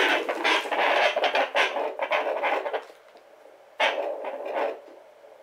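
Pocket fetal Doppler's loudspeaker giving scratchy, rustling static as its ultrasound probe is slid over gel on the belly in search of the fetal heartbeat, with no steady beat. The static is loud for the first three seconds, drops away, and flares briefly once more about four seconds in.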